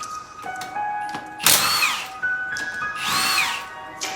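Impact wrench run in two short bursts, each whirring up and falling away, as it spins bolts loose with ease. Music plays underneath.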